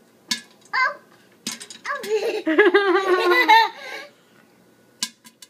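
A young child giggling, a bubbling string of laughs lasting about two seconds, with a few short sharp clicks around it.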